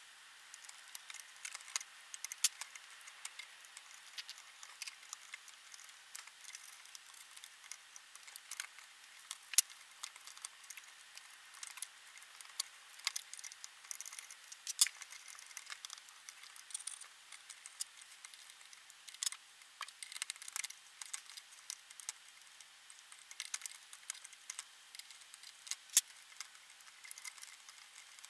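Small irregular metallic clicks and taps of tweezers and a soldering iron tip against wire leads and solder lugs in an aluminium amplifier chassis, while leads are desoldered from old capacitors. The clicks come over a faint steady hiss.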